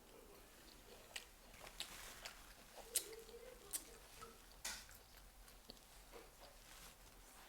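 Close-miked chewing: a scatter of short crunchy bites and mouth clicks, the sharpest about three seconds in, then quieter toward the end.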